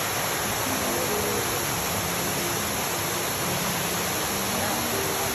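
Steady rushing of a waterfall and the stream below it pouring over rocks, a dense even hiss with no breaks.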